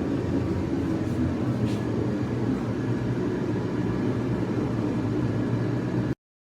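A steady low mechanical hum with several constant tones. It cuts off suddenly about six seconds in.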